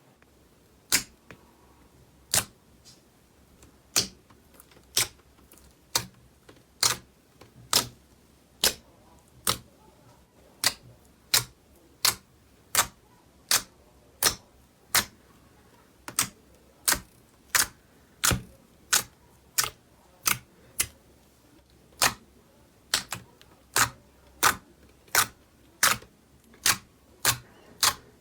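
Slime being handled, giving sharp, separate clicking pops at about one to two a second, unevenly spaced.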